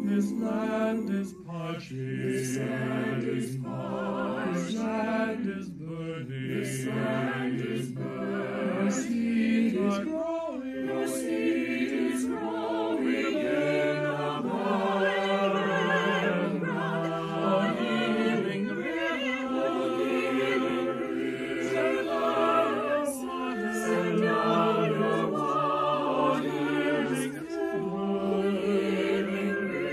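Virtual choir of men's and women's voices singing a hymn anthem together, mixed from separate home recordings.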